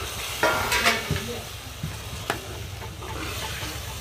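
A spatula stirring and scraping peas through a sizzling masala in a kadhai. Metal clinks sound about half a second to a second in, with single clicks later.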